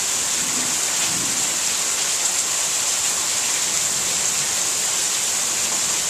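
Heavy rain falling steadily: a dense, even hiss that holds level throughout.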